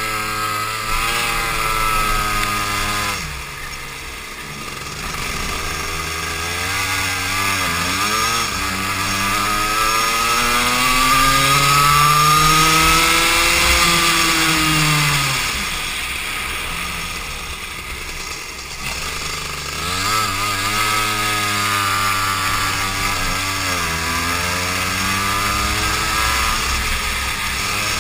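Go-kart engine heard on board at racing speed, its pitch rising under acceleration and dropping away where the driver lifts for corners, with one long climb in the middle before falling off again. A steady rush of wind noise runs under it.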